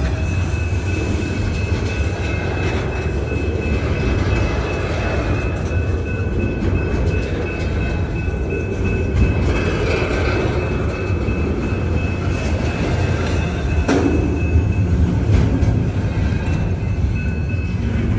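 CN intermodal freight train rolling past: a steady heavy rumble with a thin high whine held through most of it, and a single sharp click about fourteen seconds in.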